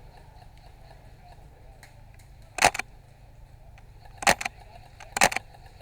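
Three sharp cracks of airsoft gunfire, the second about a second and a half after the first and the third about a second later.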